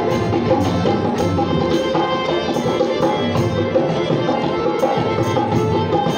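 A live band playing an instrumental passage: tabla and dholak keeping a steady beat of about two strokes a second under held harmonium and keyboard notes.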